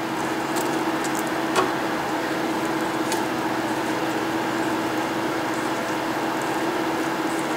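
Steady mechanical hum with a low tone. Over it come a few light clicks and handling sounds from thread being pulled around a rod, with one sharper click about a second and a half in.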